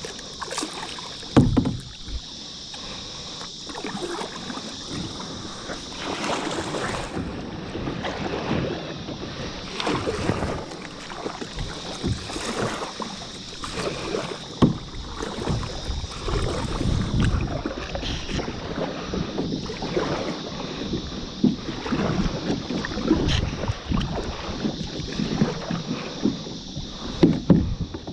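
Kayak being paddled: paddle blades dipping and splashing in the water in an irregular rhythm, with a few sharp knocks.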